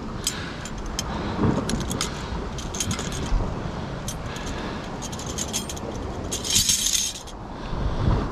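Metal clinking and rattling of a four-prong cliff gaff being handled on its rope against rock, with a dense run of rattles near the end, over a steady wash of sea and wind.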